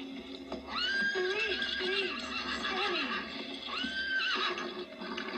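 A horse whinnying: one long, wavering whinny starting about a second in, then a shorter one near four seconds.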